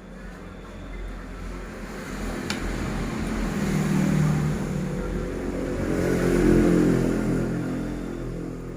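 A motor vehicle's engine passing by, swelling to a peak and then fading away.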